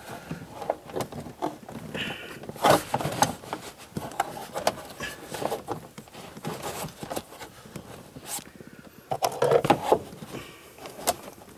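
Irregular clicks, taps and scrapes of hands and a tool working at metal parts while a screw is being started into its thread on a car's shifter assembly, with a louder flurry of knocks near the end.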